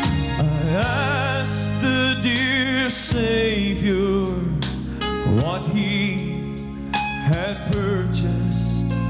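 Live country gospel song: a man singing with vibrato over a band led by electric keyboard, with drums.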